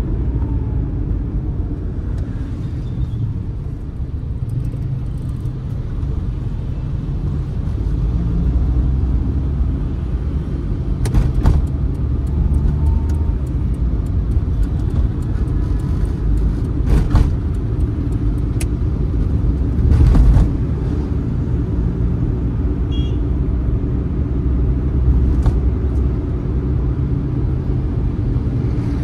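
Suzuki Mehran's 800cc three-cylinder engine running under way with road rumble, heard from inside the cabin. A few sharp clicks and one short, louder thump about two-thirds of the way through break the steady drone.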